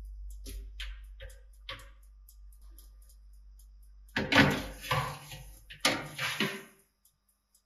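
Metal baking tray scraping and rattling along the wire rack of a countertop electric oven as it is slid in, in two pushes about a second and a half apart, the first the louder. A low hum and a few light clicks come before it.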